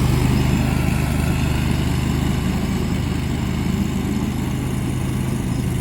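Steady low machine hum, a motor or engine running evenly with no change in speed.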